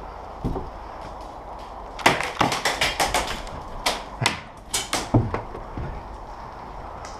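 Airsoft guns firing: a quick run of sharp snaps starting about two seconds in, then a few scattered single shots before it goes still again.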